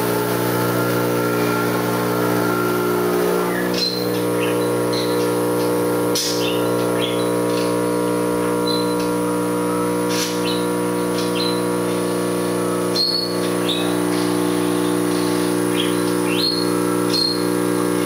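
Espresso machine's pump running with a steady hum while a shot is pulled, with a few short high chirps over it.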